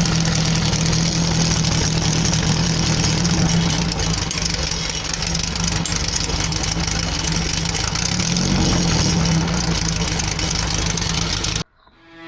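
Air-cooled Volkswagen flat-four engine of a VW trike running steadily: a constant low hum with a broad rushing noise over it. It cuts off suddenly near the end.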